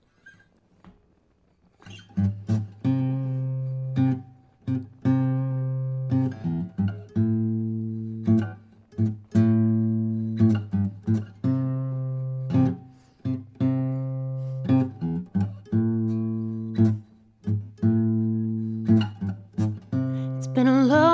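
Background music: an acoustic guitar strumming chords in a steady rhythm, starting about two seconds in after near silence. A singing voice comes in right at the end.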